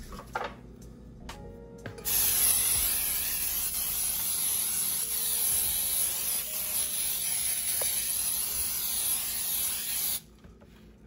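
Aerosol can of Pam baking spray (non-stick cooking spray with flour) sprayed into a tube cake pan: one long continuous hiss that starts about two seconds in and cuts off suddenly near the end.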